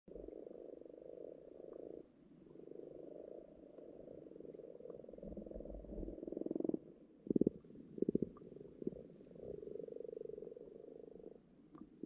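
Common frogs croaking in a pond's breeding chorus, heard underwater: a continuous low purring, broken about seven seconds in by three short, louder croaks made of rapid pulses, before the steady purring resumes.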